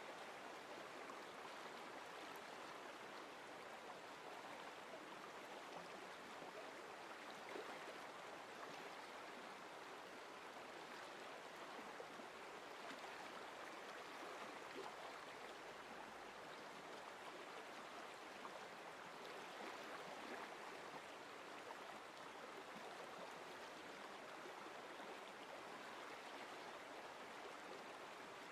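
Faint, steady flowing-stream sound of running water, even throughout with no distinct splashes.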